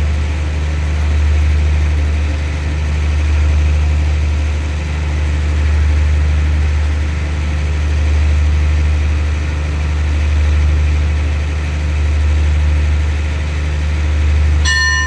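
The standing passenger train's diesel engine idling: a loud, steady low drone that swells and fades slowly. A high steady tone starts just before the end.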